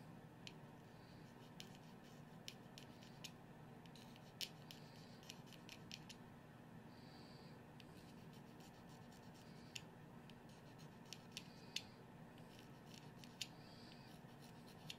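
Reed knife scraping the cane of an oboe reed in short, light strokes: faint, irregular scratches and ticks with brief hissy scrapes. The knife is cutting in the stop that separates the heart from the tip.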